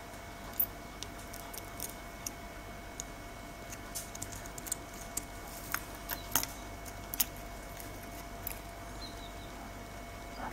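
Light, irregular clicks and taps of a soldering iron tip and fingers against a BMW remote key's circuit board while the battery tabs are being desoldered, loudest a little past the middle, over a faint steady tone.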